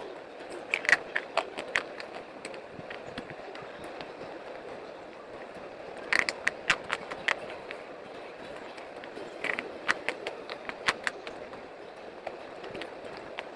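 Slate pencils being bitten and chewed close to the mouth: sharp crisp crunches in three bursts, about a second in, about six seconds in and near nine and a half seconds, with quieter chewing between, over a steady background hiss.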